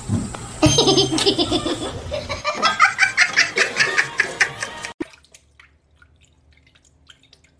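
A person laughing in quick repeated bursts that climb into higher-pitched giggling, cut off sharply about five seconds in; the rest is faint.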